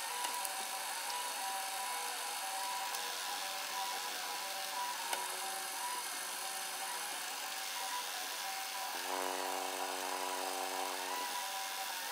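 Milling machine running while drilling holes in a metal disc: a steady machine whine with a few held tones, and a deeper pitched hum that comes in about nine seconds in and drops out about two seconds later.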